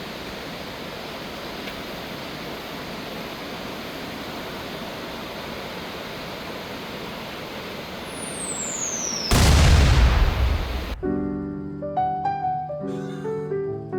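Steady rushing noise of a waterfall on the Kawazu Seven Waterfalls trail. About eight seconds in, an edited whoosh with a falling whistle swells into a loud burst that cuts off sharply, and piano music starts right after.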